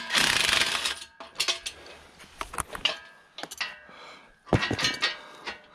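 A cordless drill/driver runs for about a second, loosening a bolt on a steel engine hoist frame. It is followed by scattered metallic clinks and clanks as the steel parts are handled, with a short cluster of them near the end.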